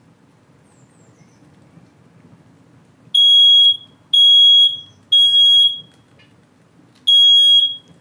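Kidde smoke alarm going off, set off by smoke from burning cardboard: a loud, high-pitched beep about half a second long, three times in a row about a second apart, a pause, then the next set starting near the end. This three-beep-and-pause pattern is the standard temporal-three evacuation signal.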